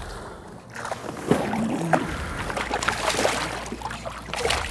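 A hooked smallmouth bass thrashing and splashing at the surface beside a boat, with water sloshing against the hull in several uneven bursts.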